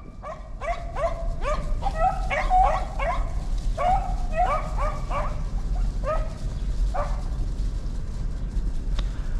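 Several hunting dogs yipping and whining, many short calls overlapping one another, thinning out after about seven seconds.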